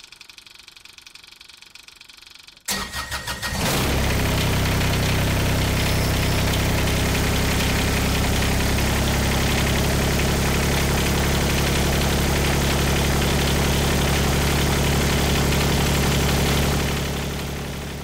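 Kubota BX25D tractor's three-cylinder diesel engine cranked by the starter, catching about three seconds in after a brief crank, then idling steadily before fading out near the end.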